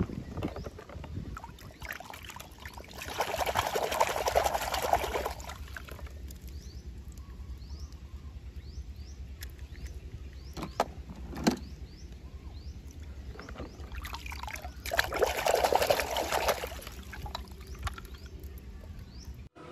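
Muddy water sloshing and splashing in a plastic tub as die-cast toy cars are swished through it by hand, in two spells of a few seconds each, with two sharp clicks in between.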